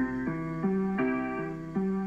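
Piano played by a young child: a simple tune over a repeating pattern of low notes, the notes changing a few times a second.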